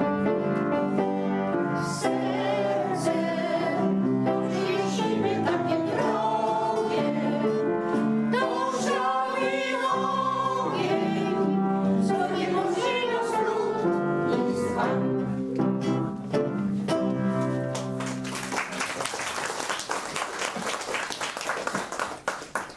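Vocal ensemble singing a song with instrumental accompaniment; about eighteen seconds in the song ends and is followed by audience applause.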